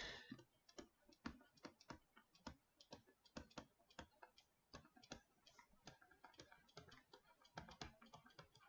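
Faint, irregular light ticks, about two or three a second, from handwriting being entered stroke by stroke on a computer.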